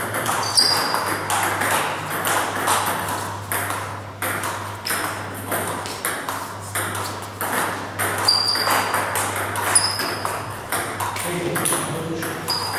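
Table tennis rally: the ball clicking off the bats and bouncing on the table in quick, uneven succession, some hits with a short high ping. A steady low hum runs underneath.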